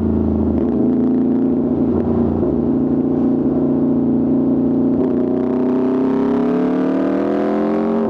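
Aprilia RSV4 RR's V4 engine running through an Austin Racing exhaust at steady revs, then rising smoothly in pitch over the last couple of seconds before dropping back right at the end.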